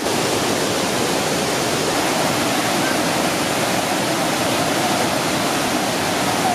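Datanla Waterfall's cascade rushing: a steady, even wash of falling water with no breaks.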